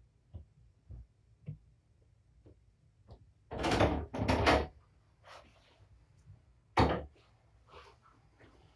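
A door opening and shutting: a few faint knocks, then two louder scraping rushes about three and a half seconds in, and a single sharp bang near seven seconds.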